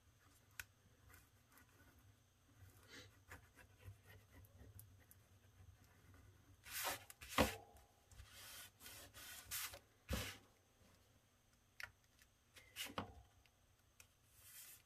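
Paper and a tissue being handled and rubbed on a cutting mat: faint rustling and rubbing, with a few short, louder knocks and scrapes about seven, ten and thirteen seconds in.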